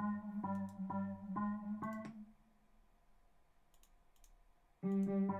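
Computer-generated music from FL Studio: a melody of synthesized notes built from Fibonacci-sequence MIDI, about two notes a second over a bass line. It stops about two seconds in, leaving a few mouse clicks, and starts again near the end.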